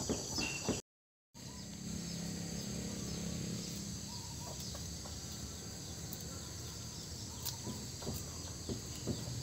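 Rural outdoor ambience: a steady high insect-like hiss with a few faint bird calls, and a few faint clicks near the end from a small knife trimming galangal rhizomes. The sound drops out for about half a second, about a second in.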